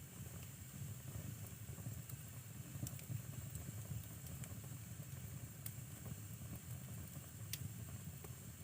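Wood fire burning in a fireplace: a soft, low rumble of flames with scattered sharp crackles and pops from the burning logs.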